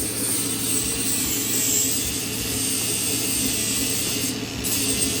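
Grinder running steadily, grinding down rough flux-core welds on steel, with a high whine that wavers slightly in pitch as it bears on the metal.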